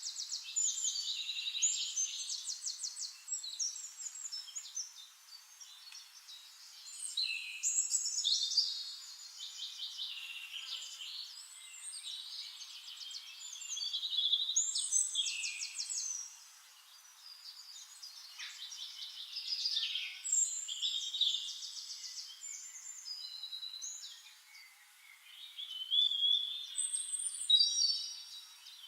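Songbirds singing: high, warbling song phrases with rapid trills, coming in bouts of a few seconds with short quieter gaps between them.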